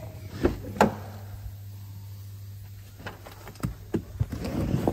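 Handling and knocking sounds of someone climbing into a car's driver's seat: two sharp clicks about half a second and one second in, and a few more knocks and a rustle near the end, over a steady low hum.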